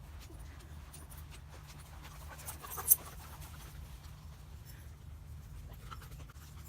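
A dog panting, with one short, sharp sound about three seconds in.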